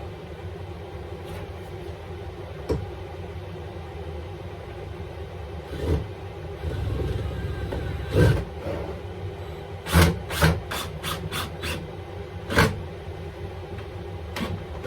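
Wooden pieces knocked and tapped as they are handled and positioned, with single knocks spread out and a quick run of about six taps about two-thirds of the way in, over a steady low hum.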